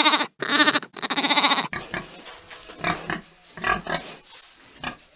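A lamb bleats three times in quick succession with a quavering pitch, the last bleat the longest. Then a pig grunts several times in short, irregular bursts.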